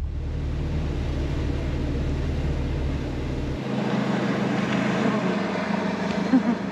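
Motorboat engine running over a steady rush of water and wind. About halfway through, the deep hum drops away, and near the end the engine note rises and shifts.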